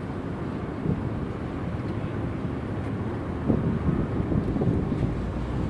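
Steady low rumble of outdoor background noise, with a few louder swells about three and a half to five seconds in.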